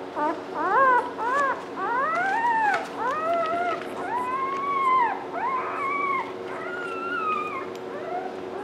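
Newborn English Mastiff puppies crying: a string of high squealing calls that each rise and then fall in pitch, several overlapping, tailing off near the end.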